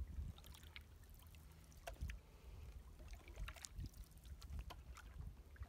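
Faint splashes and drips of a wooden canoe paddle dipping and pulling through calm water, over a low steady rumble.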